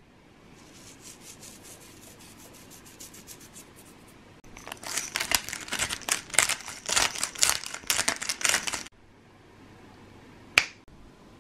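Pepper mill being ground: faint rapid clicking at first, then about four seconds of loud, fast grinding clicks that stop abruptly. About a second and a half later comes a single sharp finger snap, the loudest sound.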